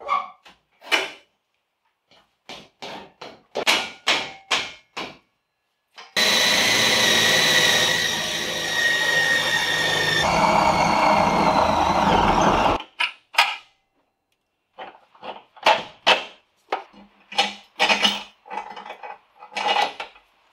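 Scattered short clanks and knocks of tools and parts. Then, about six seconds in, a power drill runs for some six seconds with a steady whine as its bit bores into the car's sheet-metal floor pan, and stops suddenly. More scattered knocks follow.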